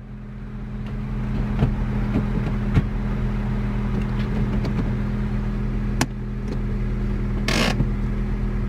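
2005 Honda Civic Type-R's four-cylinder engine idling steadily, heard from inside the cabin. Over it come a few light clicks and clunks as the six-speed manual gear lever is moved through its gates, and near the end a short rasp from the handbrake lever's ratchet.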